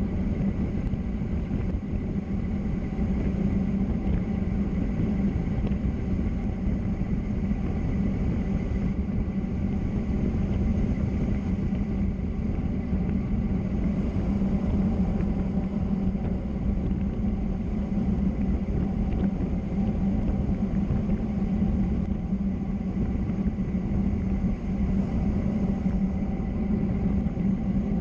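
Steady rumble of wind and road noise on a fast downhill road descent, with a low hum around which the noise is loudest.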